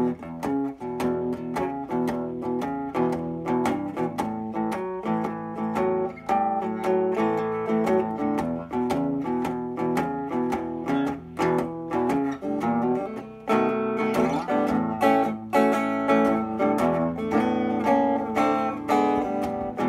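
Custom oil can electric guitar with Telecaster-style pickups, played on its rhythm pickup through a small 1950s tube amplifier. It plays a blues run of picked notes and chords with a full sound.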